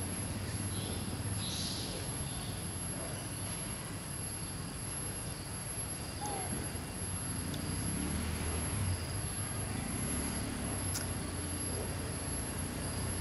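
Outdoor ambience: a steady low rumble with a thin, constant high-pitched whine over it, broken only by a couple of faint short bird-like chirps and a single small click near the end.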